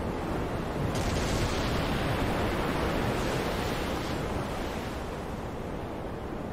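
Ocean waves: a steady rush of surf that swells about a second in and eases off after about four seconds.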